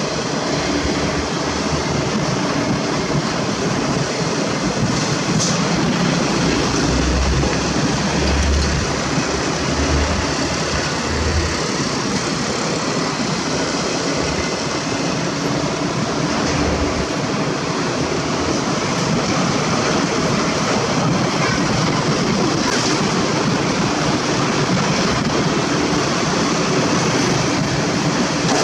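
Steady noise of travelling along a road: wind rushing over the microphone, with engine hum and tyre noise, and a few low rumbling gusts in the first half.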